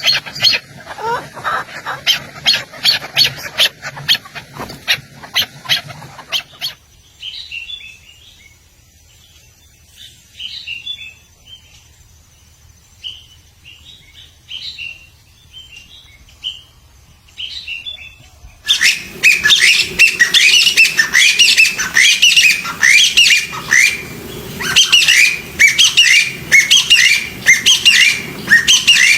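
Songbirds calling in three separate stretches: first a dense run of sharp, rapid calls, then from about seven seconds in a quieter stretch of short, scattered chirps, and from about nineteen seconds a loud, fast series of repeated notes.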